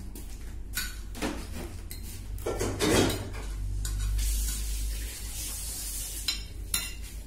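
Eating utensils clinking against dishes several times, the loudest clink about three seconds in.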